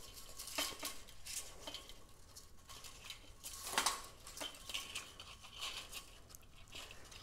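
Venetian blind slats clicking and rattling lightly against each other as a cord is threaded down through them by hand, with soft rustles of the cord being pulled. One louder knock of a slat a little under four seconds in.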